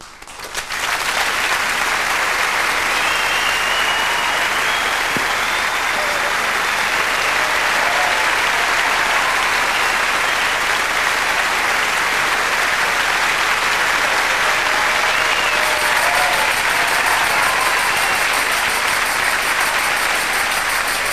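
Large theatre audience applauding at the end of a song, swelling within the first second and then holding steady and loud.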